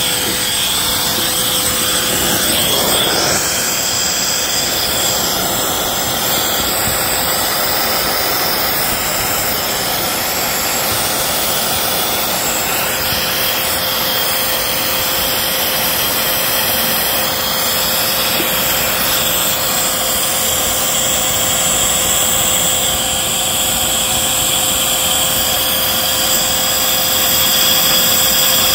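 Vacuum cleaner running steadily with a constant whine, its hose sucking leaves and gunk out of a car's rain well.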